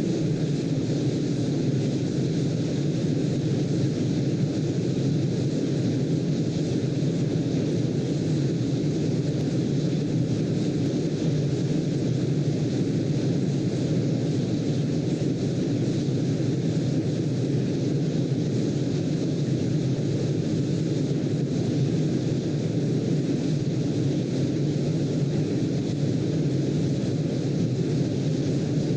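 Steady, even, low-pitched rushing noise from a sleep-aid noise track, heavier in the lows like brown noise, with no rise or fall.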